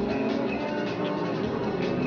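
Background music with held notes.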